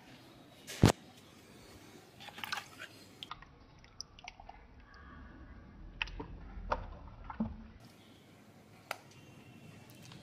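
A single sharp knock about a second in, then scattered small clicks and wet squishing from a hand working in water in a plastic bucket.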